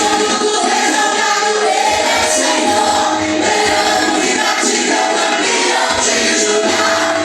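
A group of voices singing a worship song together, in Portuguese.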